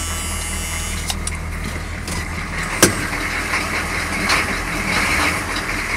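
GM 6.2-litre diesel V8 of an older GMC Sierra 3/4-ton pickup idling steadily just after being started, with one sharp click a little under three seconds in.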